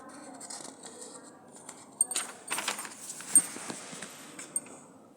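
Handling noise: a cluster of sharp clicks and rustling starting about two seconds in, with the loudest clicks near the start and in the middle, over a faint low hum.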